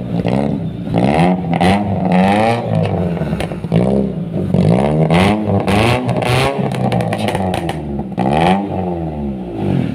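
Suzuki Aerio four-cylinder engine revved in short throttle blips, about one a second, heard close at the tailpipe through a newly fitted HKS Hi Power aftermarket muffler. Each blip rises and falls in pitch.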